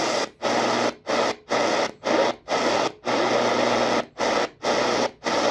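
Radiwow (Sihuadon) R-108 DSP shortwave receiver being tuned step by step through the 49 meter band. Its speaker gives short bursts of static and noise, each cut by a brief silence as the frequency changes, about two a second.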